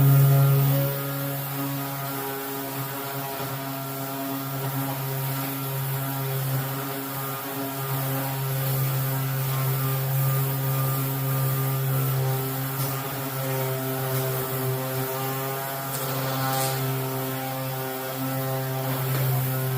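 Power sander running steadily against the car's painted body, a constant motor hum that wavers slightly as it works the paint.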